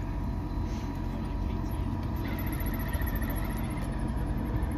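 Electric motor of a radio-controlled rock crawler whining, wavering in pitch as it crawls, starting a couple of seconds in over a low steady rumble.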